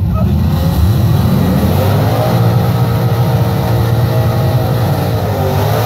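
Engines of a 1000-horsepower Trans Am drag car and its opponent launching at full throttle. The engine note rises over the first two seconds, then holds loud and steady as the cars run down the strip.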